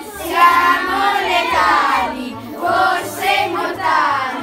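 A group of young children singing together loudly, in short phrases.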